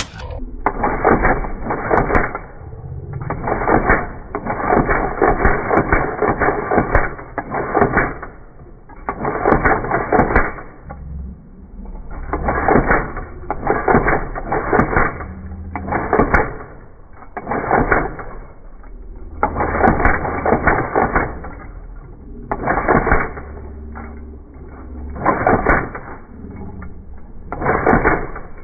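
IBM golf-ball (Selectric-type) electric typewriter typing with a Prestige Elite 72 typeball: rapid runs of sharp key-and-ball strikes in bursts of one to two seconds with short pauses between them. A faint steady hum from the running motor carries on under the strikes.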